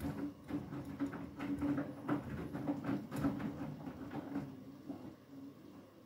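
Beko WTK104121W front-loading washing machine tumbling wet laundry in rinse water: a steady motor hum with repeated sloshing and splashing as the load drops in the drum. The tumbling dies away about five seconds in as the drum comes to rest.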